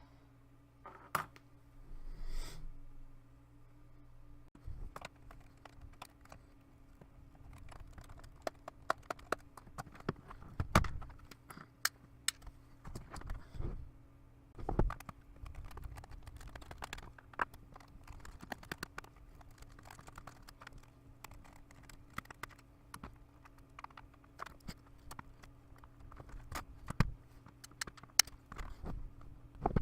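Irregular small clicks and taps of plastic and metal parts being handled and worked with a small screwdriver while a laptop is taken apart, with a few louder knocks, over a faint steady low hum.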